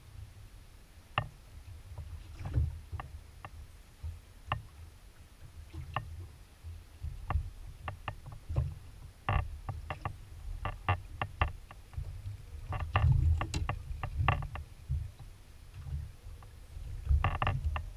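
Small waves slapping and knocking irregularly against a small aluminium boat's hull, over a steady low rumble.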